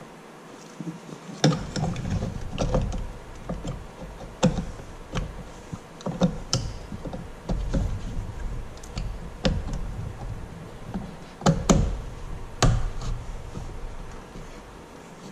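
Wiring harness plugs being pushed onto a truck's engine computer (PCM) and their locking levers pressed shut: irregular plastic clicks and knocks with handling noise, the loudest clicks coming in a cluster about twelve seconds in.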